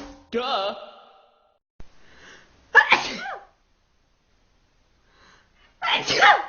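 A string of sneezes: a smaller voiced burst about half a second in, then two loud sneezes about three seconds apart, one near the middle and one near the end.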